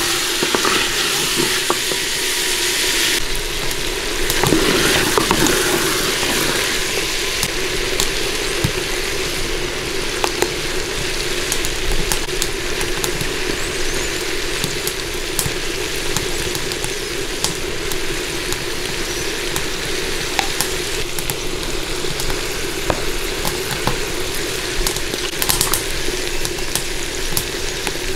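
Potatoes and peas sizzling in a stone cooking pot, with a wooden spoon stirring and scraping against the pot and occasional small knocks. The sizzle is strongest for the first few seconds.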